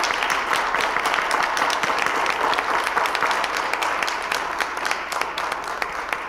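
Small congregation applauding, many hands clapping steadily, tapering off near the end.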